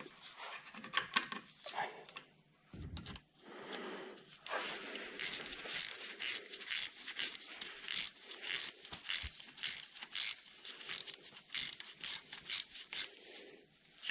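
Hands and a small hand tool working on the underside of the engine: rubbing and scraping, with a quick run of short clicks starting about four and a half seconds in.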